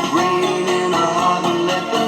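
Studio pop recording playing a passage without transcribed vocals, with sustained instrumental notes.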